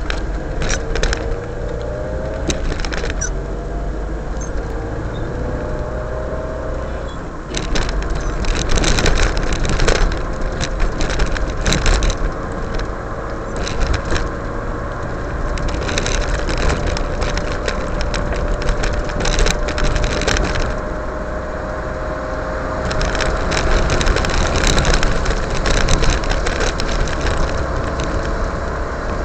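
Car driving, heard from inside the cabin: steady engine and tyre noise with a low rumble and a faint tone slowly rising in pitch. Spells of light rattling and clicking come and go several times.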